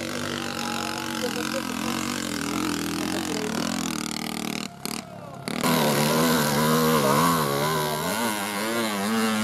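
Small motorcycle and moped engines running hard, the pitch rising and falling with the throttle, most strongly in the second half. There is a short break in the sound about halfway through.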